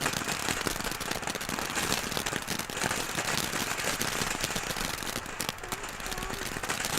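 Consumer fireworks going off, a dense, continuous string of small crackling pops that keeps up without a break.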